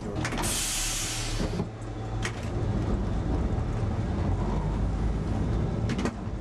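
Lisbon Remodelado tramcar running on street track: a steady low rumble with a few sharp clicks, and a burst of hiss about half a second in that lasts about a second.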